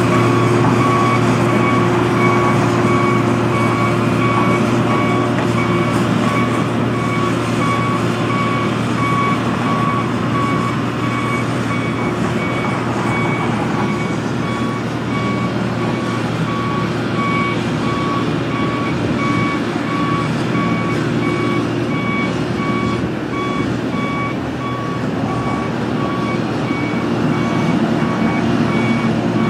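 Excavator's diesel engine running steadily under a warning alarm that beeps over and over at an even rate.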